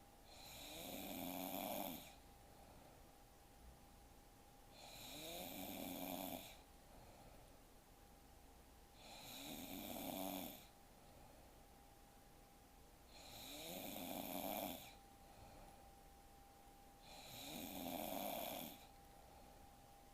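A sleeping woman snoring: five snores about every four seconds, each swelling over a second or two and then cutting off abruptly, with quiet breathing gaps between them.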